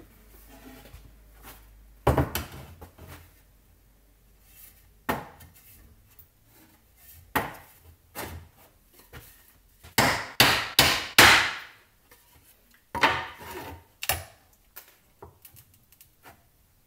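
Wooden boards of a butt joint held by plastic connecting dowels being wiggled loose and pulled apart, knocking and clattering against each other and the workbench. A quick run of four loud knocks comes about ten seconds in.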